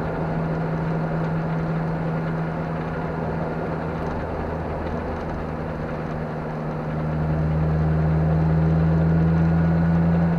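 Car engine heard from inside the cabin, holding a steady note under tyre and road noise. It gets louder about seven seconds in, as a low drone under the engine note strengthens.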